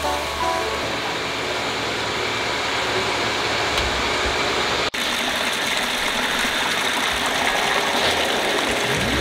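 A steady rushing hiss with a brief break about five seconds in; in the later part it is tap water pouring hard into a colander in a sink as food is rinsed.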